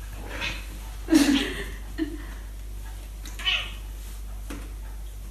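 A cat making a series of short meows and chirps, the loudest a little over a second in.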